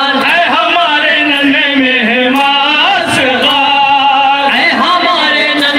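Male voices chanting a noha, a Shia mourning lament, in unison with a sustained melodic line. Sharp slaps of chest-beating (matam) fall about once a second.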